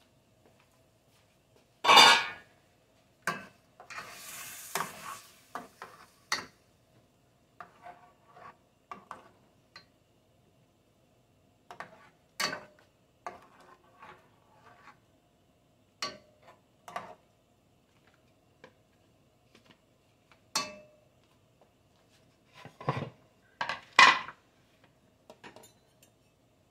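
A large metal spoon stirring and scraping in an enamelled pot of simmering rice and chicken, with clanks and knocks against the pot. There is a loud clank about two seconds in, a brief hiss a couple of seconds later, and two sharp knocks near the end.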